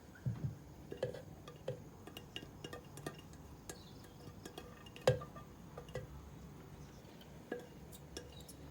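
Light clicks and clinks of kitchen containers and utensils being handled, with one sharper knock about five seconds in.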